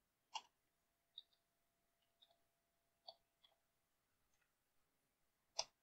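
Computer keyboard keys clicking faintly as a command is typed: a handful of separate keystrokes with gaps between them, the loudest one near the end.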